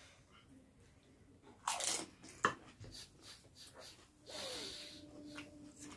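A crisp fuchka (pani puri) shell being bitten and crunched in the mouth, a loud crunch about two seconds in with a sharp crack right after, then quieter chewing.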